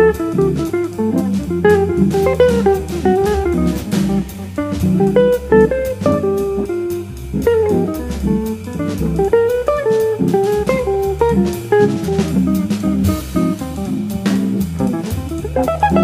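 Jazz electric guitar improvising a single-note bebop solo line over a swinging drum kit and the bass line of a Hammond organ trio.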